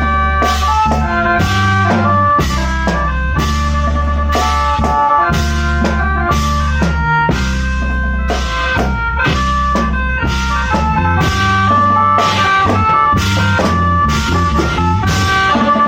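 A Thai khaen band playing: a drum kit keeps a steady beat of about two hits a second under a bass line and sustained melody tones.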